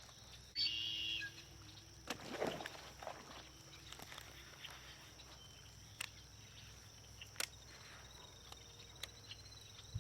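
Quiet outdoor ambience: a brief high chirp about half a second in, then a few faint clicks and rustles.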